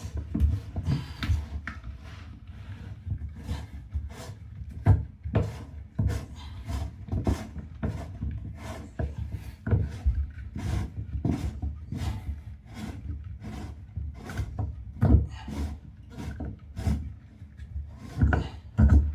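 A metal bathtub drain being forced and turned out with a hand tool: a long run of short scraping, grinding strokes, coming about once or twice a second.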